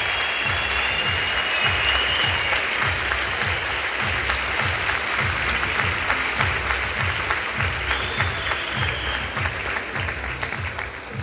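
Audience applauding over music with a steady low beat of about two beats a second; the applause thins out near the end while the music carries on.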